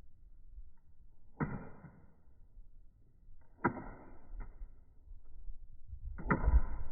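A plastic flip phone dropped down stairs, hitting the steps in sharp knocks: three hard hits about two seconds apart, with smaller bounces after the later ones. A low rumble comes in near the end.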